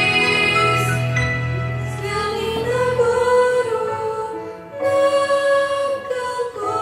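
Slow, gentle music with long held notes, from the performance of a Christian song.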